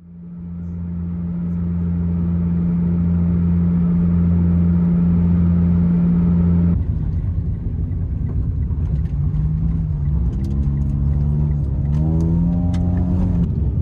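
Car driving at highway speed, heard from inside: a steady engine and road drone fades in. About two-thirds of the way through it changes abruptly, and the engine hum then climbs in pitch several times.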